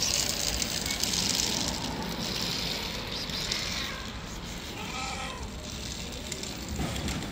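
A cat gives two short meows, about three and a half and five seconds in, over steady street background noise that is loudest in the first two seconds.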